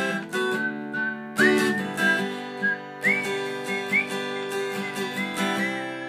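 A woman whistling a melody over a strummed acoustic guitar. The whistled notes slide up into pitch, with several guitar strums through the melody.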